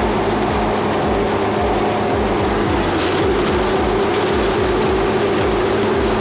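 Industrial wood chipper running steadily under load: a continuous machine drone with a rhythmic low pulsing beneath it, starting abruptly.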